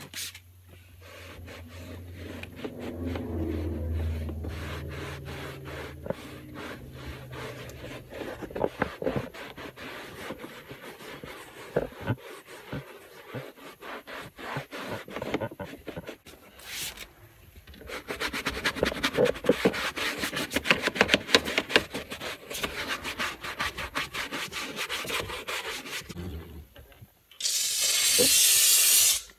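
A cloth headliner in a car being scrubbed by hand with a towel, a dry rubbing in quick repeated back-and-forth strokes. A loud steady hiss lasts about a second and a half near the end.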